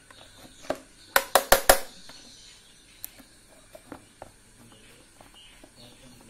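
Plastic blender motor base being handled and screwed back together on a tile floor: four quick sharp knocks a little after a second in, with single clicks before and after and a few lighter ticks later.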